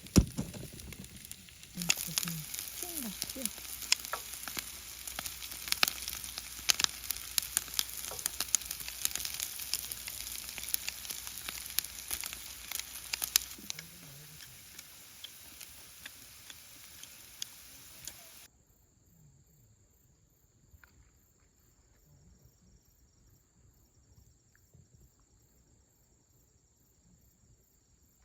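Campfire crackling and sizzling: many sharp pops over a steady hiss. It eases off about 14 seconds in and cuts to near silence about 18 seconds in.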